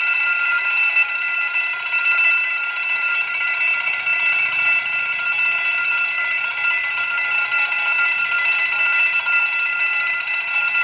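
Railway level-crossing warning bell sounding from the crossing signal's loudspeaker: a loud, steady electronic ringing that warns a train is approaching.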